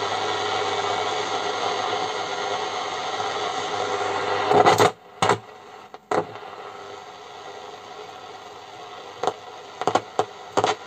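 VEF portable transistor radio hissing with short-wave static from its speaker while being tuned: loud at first, then dropping sharply to a quieter hiss about five seconds in, with several crackles and clicks. The owner puts the crackling and poor reception down to oxidized contacts in the band-switch drum.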